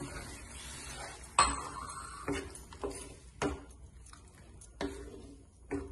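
Wooden spatula stirring a thick pickle sauce in a metal frying pan, knocking against the pan about six times at uneven intervals, each knock ringing briefly; the sharpest clink comes about a second and a half in.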